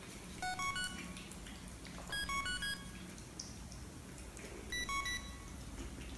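A simple electronic tune of short beeping notes, played in quick stepped phrases that come back about every two seconds, like a ringtone.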